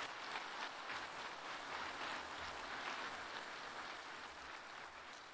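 Audience applauding, many hands clapping, slowly dying down.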